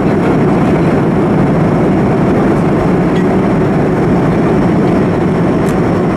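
Steady, loud cabin noise inside a Boeing 737-200 in descent: rushing airflow over the fuselage mixed with its Pratt & Whitney JT8D turbofans, with a faint high whine above.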